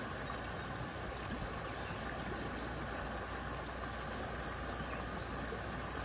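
Shallow creek flowing over a rocky riffle, a steady rushing of water, with a steady low hum underneath. About three seconds in, a bird trills briefly, a run of about ten quick high notes lasting about a second.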